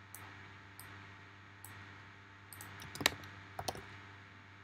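Computer keyboard keystrokes and mouse clicks, a dozen or so separate clicks at an uneven pace, the loudest about three seconds in.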